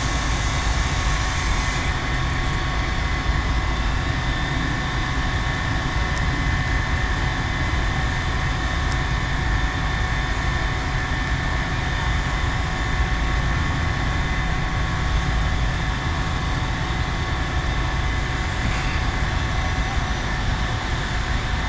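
Gas escaping from a ruptured gas main and burning, a loud steady rushing noise that does not let up, with a faint steady hum over it.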